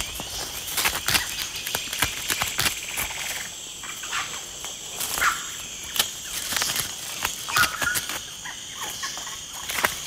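Agouti gnawing at the hard woody shell of a Brazil nut pod, its teeth making irregular scraping clicks. A steady chorus of forest insects runs underneath.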